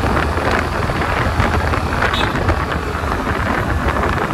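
Wind buffeting a helmet-mounted microphone while riding a two-wheeler, a steady loud rush with a deep rumble underneath that covers the engine and road sound.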